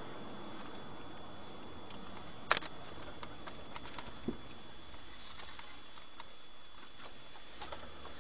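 Steady road noise inside a moving car, picked up by a dashboard camera, with scattered small clicks and ticks and one sharper click about two and a half seconds in.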